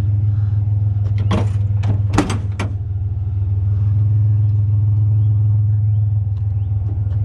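Truck engine running steadily with a low hum, with a few sharp knocks and clanks about one to three seconds in.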